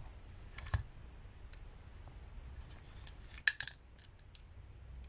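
Small metal parts of an airsoft pistol clicking and tapping as it is taken apart with a screwdriver: a click with a light knock about a second in, and a quick cluster of sharper clicks past the middle.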